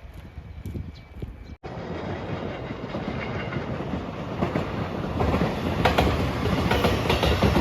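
A train approaching and passing close by, growing steadily louder, with its wheels clacking over the rail joints. A brief cutout about a second and a half in breaks the sound.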